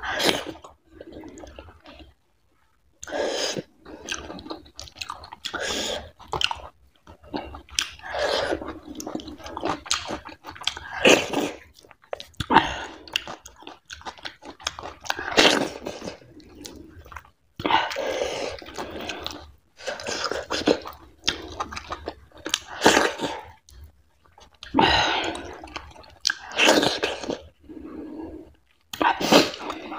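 Close-miked chewing of a hand-fed mouthful of fatty goat curry and millet dhido, in irregular runs of wet mouth sounds with a short pause about two seconds in.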